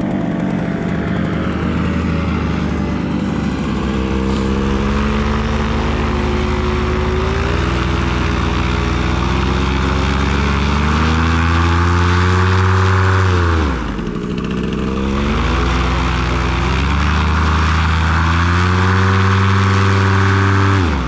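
Paramotor's Vittorazi Moster two-stroke engine, fitted with a SkyMax titanium exhaust, running with its propeller spinning. The revs climb slowly, drop off sharply about two-thirds of the way through, pick up again, and fall off at the end.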